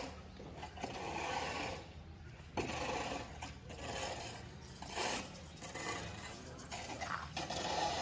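Repeated gritty scraping on cement and brick, in strokes of about a second each, over a faint steady low hum.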